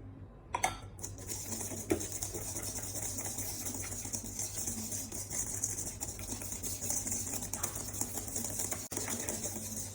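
Electric mixer running steadily, beating egg yolks, sugar and cream into a batter; it starts with a click about a second in.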